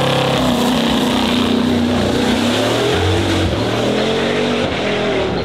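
Bugatti Bolide's 8.0-litre quad-turbo W16 engine accelerating hard away from a standstill, revs climbing, dropping at a gear change and climbing again, then easing slightly as the car pulls away near the end.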